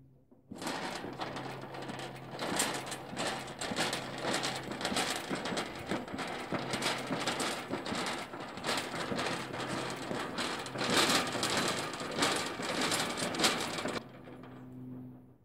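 Steel livestock trimming crate rattling and clattering as its mesh-sided cage is moved, a dense run of metallic knocks and rattles. It starts abruptly and stops abruptly shortly before the end.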